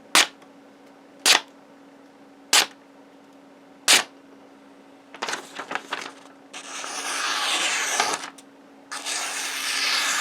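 A freshly sharpened Spyderco Native 5 blade cutting thin notebook paper: four short snaps about a second apart, then a few small crackles, then two long rasping slices through the sheet in the second half. A faint steady hum runs underneath.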